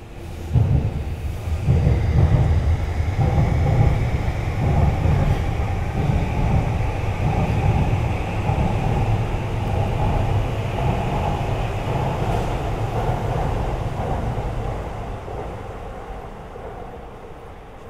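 A train passing close by: a loud low rumble with a faint whine that rises slightly in pitch. It comes in suddenly about half a second in and dies away over the last few seconds.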